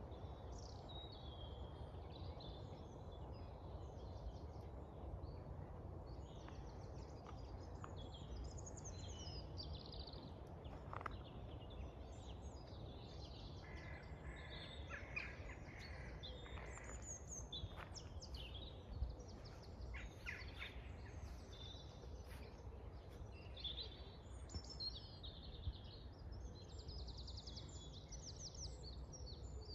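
Dawn chorus: many songbirds singing and calling at once, a dense run of short chirps and trills, over a low steady background rumble.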